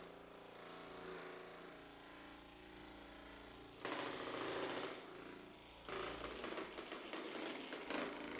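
Percussion massage gun running against the gluteal and hamstring muscles: a steady motor hum with its head pulsing into the muscle. It gets louder about four seconds in and again from about six seconds on.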